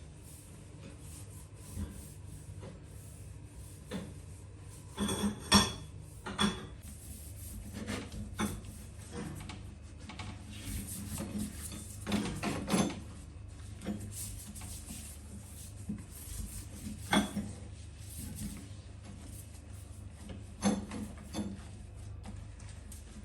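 Irregular knocks, clatter and rubbing of household objects being handled, over a steady low hum.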